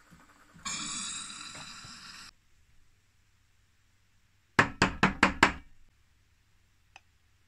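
Steam hissing from an espresso machine's steam wand for about a second and a half. A little later comes the loudest part: five quick sharp knocks of a stainless steel milk jug tapped down on the counter, the usual way to settle the bubbles in freshly frothed milk.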